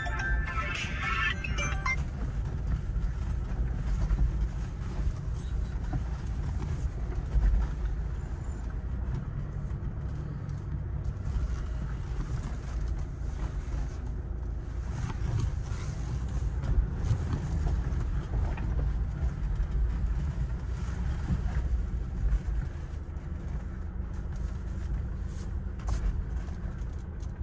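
Low, steady rumble of a Toyota Hilux's 2.8-litre diesel engine and tyres driving over a rough dirt track, heard from inside the cabin, with a few knocks from bumps.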